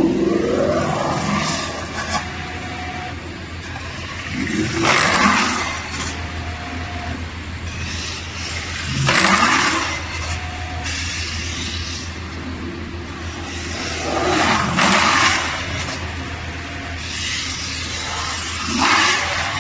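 CNC metal spinning machine for cookware running its forming cycle: a steady motor hum, with a surge of scraping noise whose pitch sweeps up and down about every five seconds as the tool works the spinning metal.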